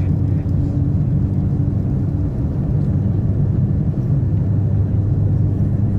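Steady low rumble with an underlying hum inside the passenger cabin of a Japanese maglev train running at about 300 km/h and gaining speed.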